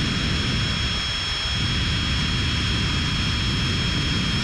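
Power drill running at steady high speed, a small twist bit drilling a pilot hole through the centre of a spot weld in a steel car body panel: a steady, high motor whine over the grind of the bit in the metal.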